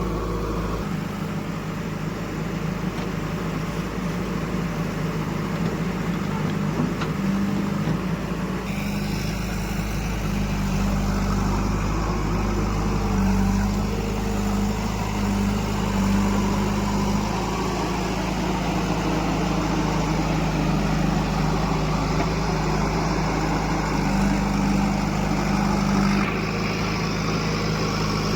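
Heavy diesel engine of a backhoe loader or tractor running steadily at a fairly constant speed, with the sound shifting abruptly about nine seconds in and again near the end.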